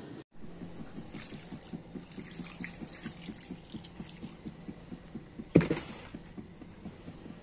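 Water poured from a bottle into a metal pot of fish and vegetables, trickling and splashing onto the food. About two-thirds of the way through there is one sharp knock.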